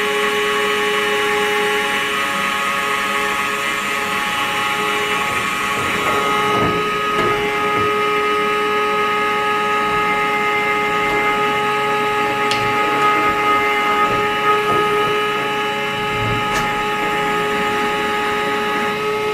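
Electric motor of a Ladies First automatic chicken coop door running with a steady whine as it drives the door panel down to close.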